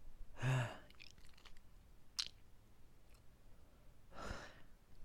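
A man's mouth and breath sounds while his mouth burns from extremely hot peppers. A short, low voiced grunt near the start is the loudest sound. Faint wet mouth clicks and a sharp smack follow about two seconds in, then a long breathy puff near the end as he spits and blows out.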